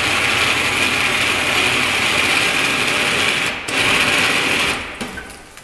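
A 12-volt ATV winch motor runs steadily under load, hauling a wheelchair up a steep plywood ramp. It stops for a moment about three and a half seconds in, runs again for about a second, then stops.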